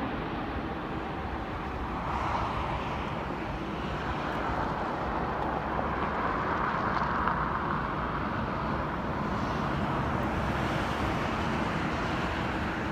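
Steady cabin noise of a Boeing 777-300ER rolling along the ground: engine hum and a rolling rumble, swelling a little twice.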